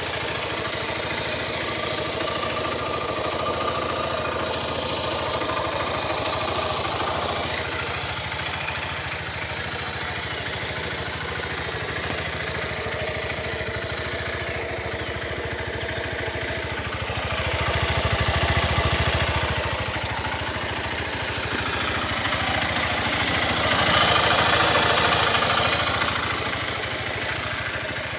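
Honda CG 150 Titan's single-cylinder four-stroke engine running and revved up twice in the second half, with an unexplained noise on acceleration that the owner is asking about.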